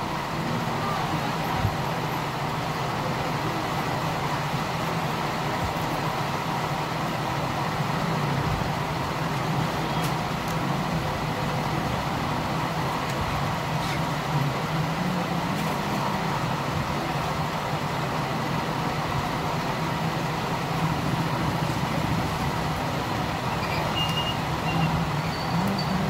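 Steady, unchanging background rumble with hiss, with a few faint light clicks.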